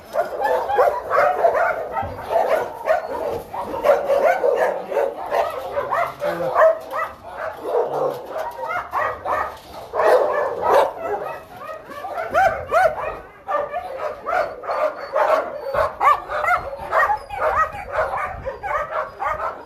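A pack of shelter dogs barking and yipping together in a dense, overlapping chorus that never lets up.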